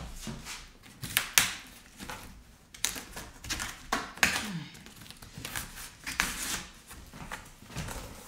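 Cardboard box being torn open and handled: irregular bursts of crackling and rustling cardboard.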